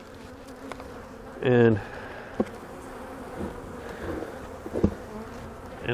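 Honey bees buzzing steadily around an opened hive, with a couple of light knocks from the hive parts being handled.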